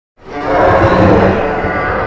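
Monster roar sound effect for the adult Suko, a young Godzilla: one long, rough roar that swells in about a quarter second in and slowly fades.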